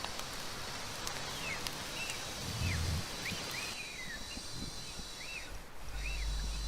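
Outdoor ambience with a bird giving short, repeated chirps over a steady high hiss; a low hum comes in near the end.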